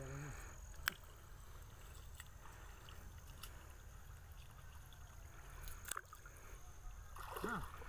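Water sloshing as men wade waist-deep and push a bamboo-framed fishing net through the water, over a low steady rumble, with two sharp clicks, one about a second in and one about six seconds in.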